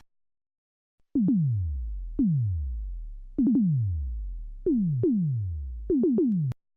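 Synthesized sci-fi laser gun sound effect: a string of about nine shots, each a zap that sweeps steeply down in pitch into a low boom. They come singly about a second apart at first, then in quicker pairs and triplets, and cut off abruptly near the end.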